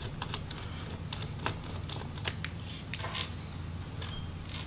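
Light, scattered clicks and ticks of a small screwdriver turning out a tiny screw inside an opened MacBook Pro laptop, over a steady low hum. The clicks thin out near the end.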